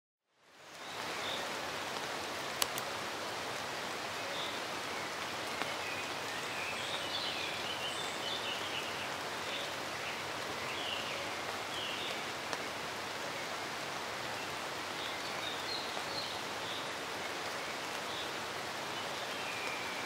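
Steady rain falling on forest foliage, a constant hiss that fades in at the start, with faint bird chirps now and then and a single sharp tick a few seconds in.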